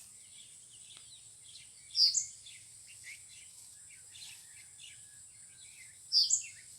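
Outdoor birds chirping steadily, with a louder short rising call about two seconds in and again near the end, over a faint low rumble of wind.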